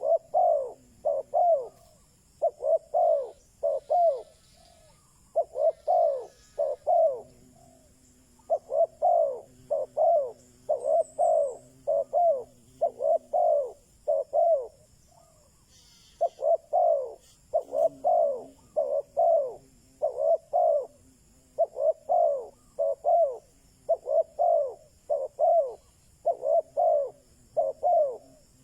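Spotted dove cooing over and over in short phrases of three or four notes, with brief pauses between some phrases: a decoy dove's call, used to rouse wild males.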